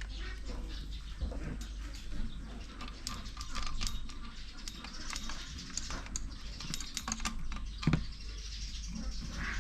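Scattered light clicks and taps of hand tools and metal engine parts being handled during engine disassembly, with one heavier knock about eight seconds in.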